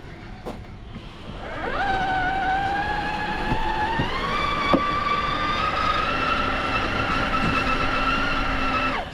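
Electric drive motor and gearbox of an RC rock crawler whining under throttle. The pitch rises about a second and a half in, steps up again a little later, holds steady, then cuts off suddenly near the end. A few short knocks sound along the way.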